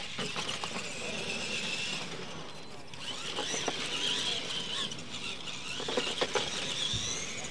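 Electric R/C monster trucks racing on dirt: the whine of their motors and gearboxes rises and falls as they accelerate and slow. Several short knocks, the loudest a pair about six seconds in, as trucks hit the ramps.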